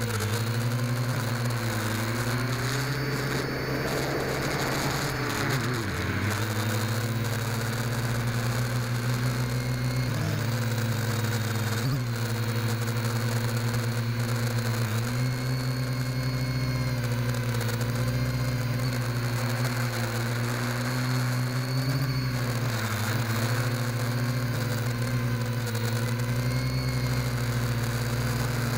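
Small FPV quadcopter's electric motors and propellers whirring, recorded on board, the pitch rising and falling with the throttle and dipping sharply about six seconds in.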